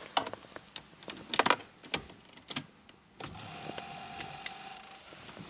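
A few sharp clicks and knocks, then a steady electric whine for about two seconds: a car's fuel pump priming as the ignition is switched on, just ahead of starting the engine.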